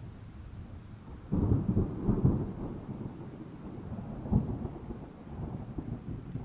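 Thunder: a sudden loud clap about a second in that rolls on in crackling rumbles, another sharp crack a few seconds later, then the rumble fades.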